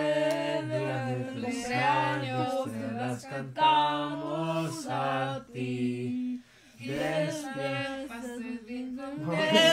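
A small group of people singing a birthday song together without accompaniment, low and higher voices in long held notes.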